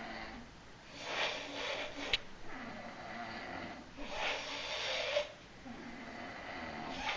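Two sleepers snoring in turn, a breathy snore about every three seconds. Some snores carry a low buzz and others are more hissing. There is a short click about two seconds in.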